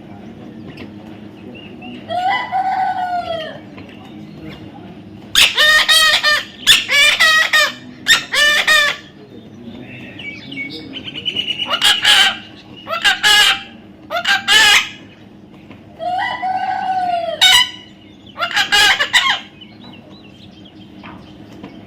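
Loud, drawn-out bird calls, about nine of them, each half a second to a second and a half long with a rising-then-falling pitch, coming in clusters.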